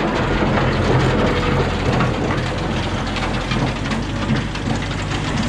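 Farm tractor engine running steadily while it drives round unrolling a hay bale with its bale roller, with a continuous loose rattling clatter over the engine.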